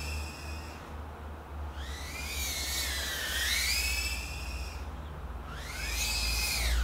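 Tiny 65 mm 1S whoop quadcopter's brushless motors and props whining, the pitch rising and falling with throttle and dropping out twice for under a second, over a low steady rumble.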